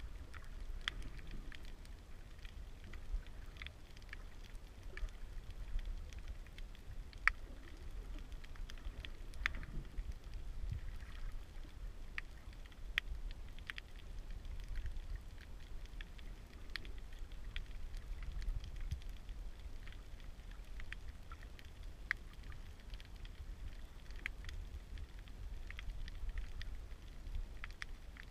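Underwater ambience picked up by a submerged camera: a steady low rumble of water movement with scattered sharp clicks and crackles, a few each second.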